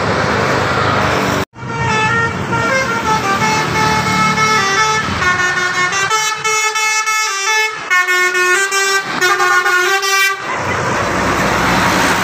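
A bus's 'telolet' musical air horn plays a tune of quick stepped notes for about eight seconds, starting about two seconds in. It is heard over bus engine and traffic noise, which carries on alone after the tune ends. Just before the tune the sound cuts out for a moment.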